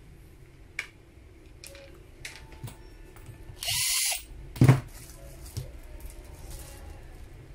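A cordless screwdriver runs for about half a second, backing a screw out of an impact drill's plastic housing. A sharp knock follows just after, with light clicks of handling before and after.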